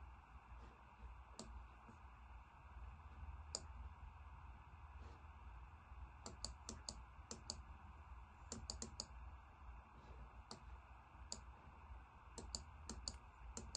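Computer mouse clicking quietly, sharp single clicks and quick runs of three or four, over a low steady hum.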